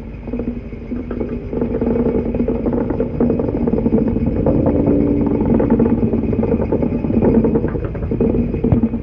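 A loud, steady low mechanical drone with a rough, rattling, engine-like rumble and a held hum underneath.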